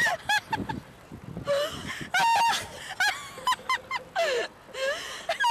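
A woman laughing hard in repeated short, high-pitched bursts, the pitch bending up and down, with brief pauses between.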